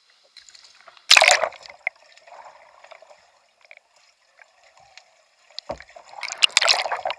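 A kayak capsizing in a pool with a loud splash about a second in, quieter water noise while the paddler hangs upside down, then heavy splashing near the end as she rolls back up with a Greenland paddle.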